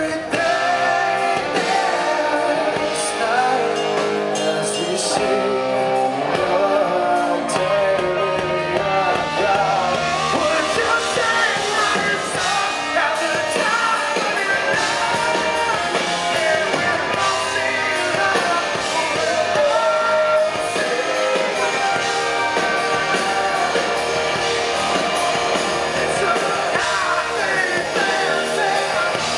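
Live rock band performance: a male lead vocalist sings into a microphone over the band's guitars and drums, steady and loud throughout.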